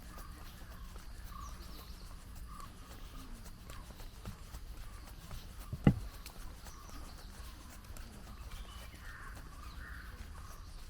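Birds chirping throughout, with soft footsteps on pavement. About six seconds in there is one sharp knock.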